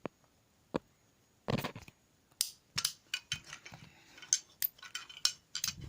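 Three old Crabtree light switches being handled: a run of irregular sharp plastic clicks and knocks.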